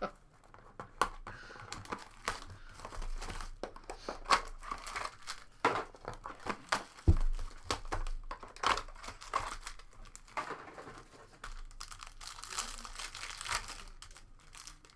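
Trading card pack wrappers being crinkled and torn open while cards are handled and shuffled, a steady run of small crackles and clicks, with one sharper knock about seven seconds in.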